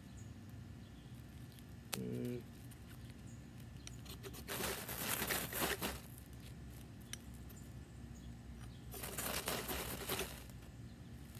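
A knife spine scraping down a ferrocerium rod in two long rasping strokes, about five and nine seconds in, throwing sparks onto wood shavings to light them. A short low sound comes about two seconds in.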